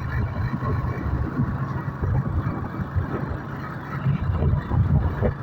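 Motorcycle engine running steadily while riding, with a constant low drone.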